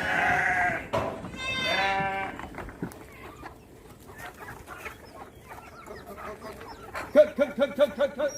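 Sheep bleating twice in the first two seconds. Near the end, chickens cluck in a quick run of short calls.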